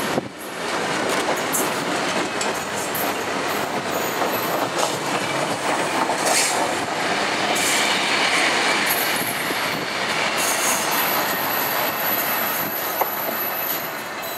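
Engineers' train of loaded ballast wagons rolling past on the track, a steady wheel-on-rail rumble and clatter. Thin high-pitched wheel squeals come and go, with a longer one held through the last few seconds.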